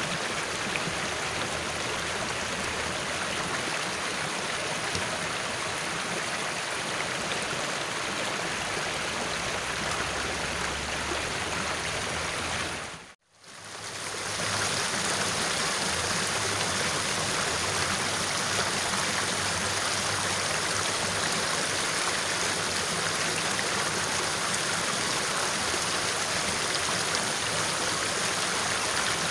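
Water rushing steadily down a small, fast-flowing ditch. The sound drops out briefly about halfway through, then comes back a little louder.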